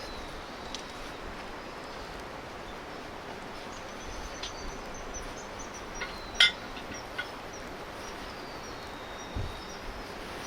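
Steady rush of outdoor ambience with small birds calling in thin high whistles, and a sharp crack about six and a half seconds in, the loudest sound, with a few fainter clicks around it.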